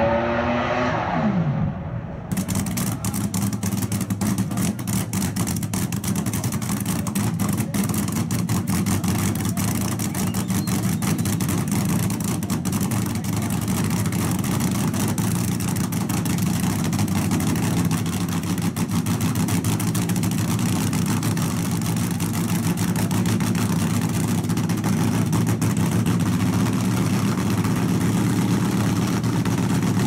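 Drag race car's engine running at a steady idle through open exhaust: a fast crackle of exhaust pulses over a steady low drone. It cuts in abruptly about two seconds in, after a falling engine note fades.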